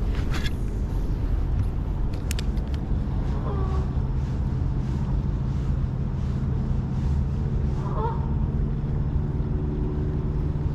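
Steady low rumble of outdoor background noise, with a steady hum joining about four seconds in. Twice, distant geese honk, and a few sharp clicks sound near the start.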